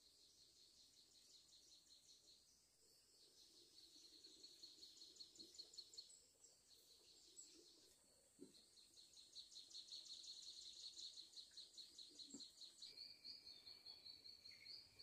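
Faint forest ambience: high-pitched chirping in rapid pulsing trains a few seconds long, from wild insects or birds, with a couple of faint soft knocks.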